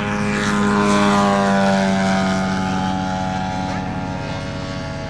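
A propeller aircraft flying past: its engine note swells to its loudest about a second in, then falls in pitch and fades as it passes.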